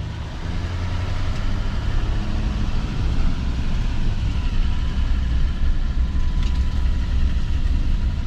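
Truck engine running while driving slowly, a deep steady rumble that gets louder over the first few seconds.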